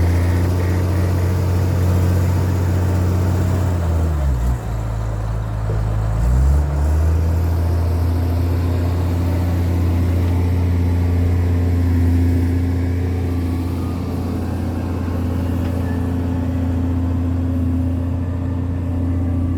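Heavy wheel loader's diesel engine running at working revs. About four seconds in the revs drop, hold low for a couple of seconds, then pick back up and run steady again.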